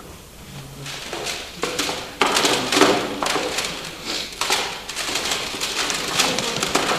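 Plastic CD cases clattering as they are rifled through and handled, a busy run of irregular clicks and knocks.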